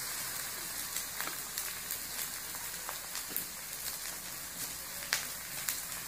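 Rice frying in a hot steel wok with soy sauce just poured over it: a steady sizzling hiss with scattered crackles and pops.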